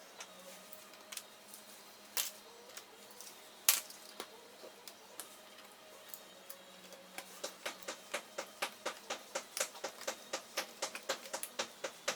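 Sharp clicks and taps from a Toshiba Qosmio G40 laptop being taken apart: scattered at first, with one loud click about four seconds in, then a quick regular run of clicks, about four a second, over the last five seconds. A faint steady hum runs underneath.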